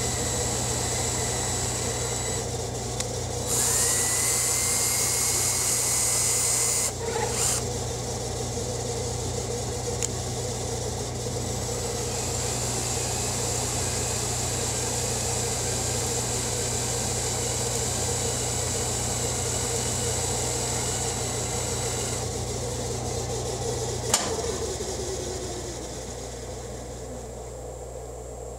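Hardinge HLV-BK toolroom lathe running while an insert tool takes a finishing cut along a metal spindle turned between centres: a steady machine hum with a hiss of cutting. The cutting is louder for a few seconds near the start, with a faint rising whine. About 24 seconds in there is a single sharp click, and the spindle then winds down, the hum falling in pitch and getting quieter near the end.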